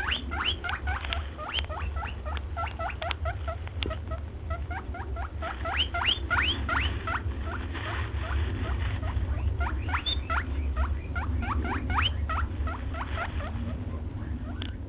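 Birds chattering: a dense run of short, rising, squeaky chirps, several a second, over a steady low rumble.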